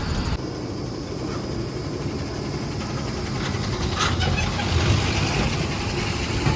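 Heavy earth-moving vehicle's diesel engine running steadily, with a brief rattle of clicks about four seconds in.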